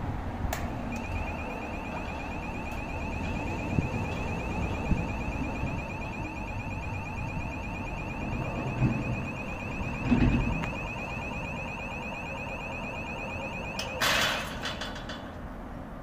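Electric level-crossing gate's warning sounder: a steady, high, rapidly pulsing electronic alarm tone while the steel palisade gate closes. Near the end the alarm stops and the gate clangs shut against its post with a loud metallic bang.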